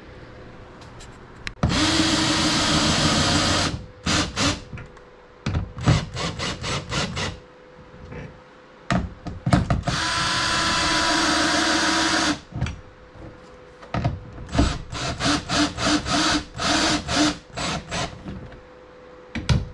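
Power drill driving a bolt home: two steady runs of a couple of seconds each, then a string of short trigger pulses as the bolt is snugged tight.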